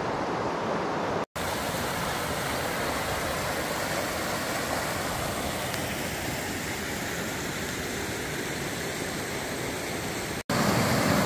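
River water rushing steadily over rocks, an even, unbroken noise that cuts out for an instant about a second in and again near the end.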